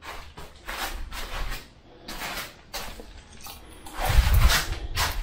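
Close handling noise: a string of rustles, clicks and knocks as gear is picked up and moved about, with a louder low thump about four seconds in.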